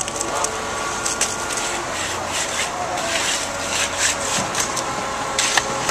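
Construction machinery running steadily, with repeated scraping and clattering over it.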